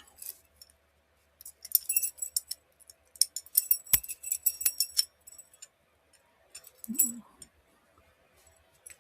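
A small bunch of metal padlock keys jingling and clinking in two spells, with a single sharp knock about four seconds in.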